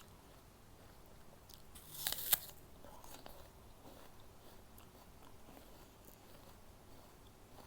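A crisp bite into a raw apple about two seconds in, followed by quieter crunchy chewing.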